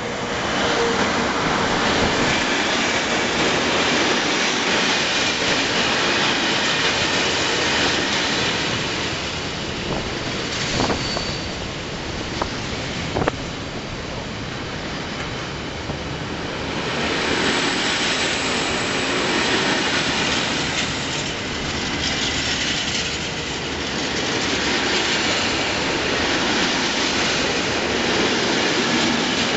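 Electric locomotive hauling a container freight train past at close range: a steady rumble and rattle of the wagons rolling by, with a few sharp clicks about halfway through.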